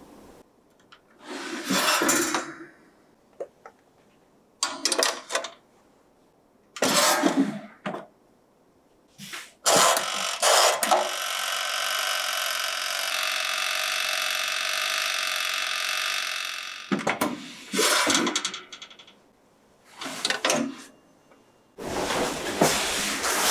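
An Aladdin toaster oven's mechanical timer running with a steady buzzing whirr for about six seconds, midway through. Before and after it come short knocks and clacks of the tray, the glass dish and the toaster door being handled.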